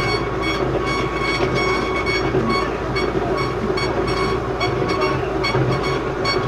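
A fishing trawler's diesel engine running steadily with a fast, regular clatter, driving the deck winch that hauls in the trawl net.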